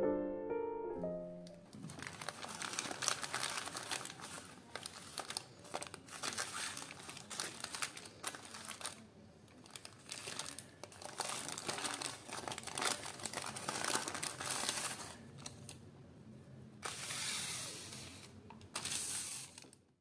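Paper shop bags crinkling and rustling in irregular bursts as they are handled and opened, louder for a couple of seconds near the end. A piano phrase fades out in the first second or so.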